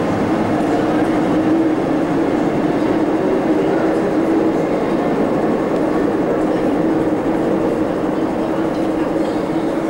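MTR Island Line M-Train (Metro-Cammell electric multiple unit) running in the tunnel beyond the platform screen doors: a steady rumble with a low hum, easing slightly near the end.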